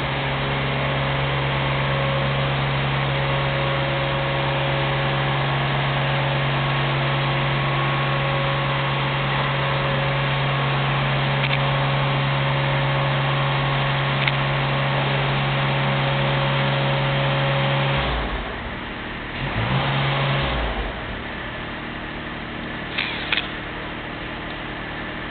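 Small electric motor of a handheld power tool driving an S/O cord stripper, running at one steady speed for a long stretch and then stopping. It gives a short second run of about a second and a half, followed by a couple of light clicks near the end.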